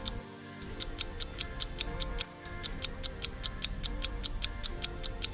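A quiz countdown timer's clock ticking, about five quick ticks a second with two short breaks, over quiet background music.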